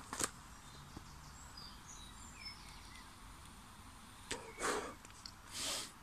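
Quiet outdoor background with a few faint high bird chirps. Near the end come two short, breathy whooshes.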